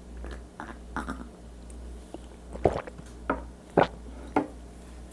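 A person drinking a shot of soju close to the microphone: a few wet swallowing gulps about half a second apart, with small mouth clicks.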